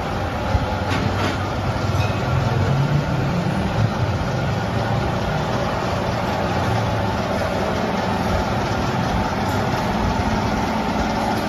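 Workshop machinery running with a steady, dense mechanical hum and a few faint clicks.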